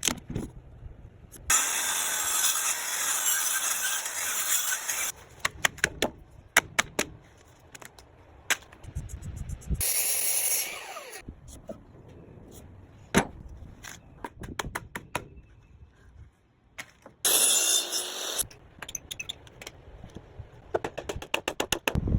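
Woodworking shop sounds: three bursts of a noisy tool working wood, the first lasting about four seconds and the others about a second each, with sharp clicks and knocks of parts being handled in between.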